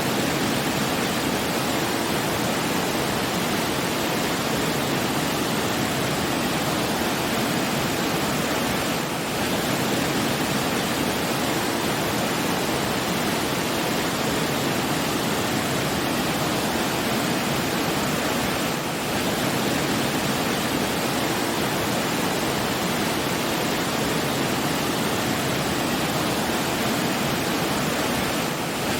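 Steady rushing water, an even unbroken wash of noise like a waterfall, that dips slightly for a moment about every ten seconds.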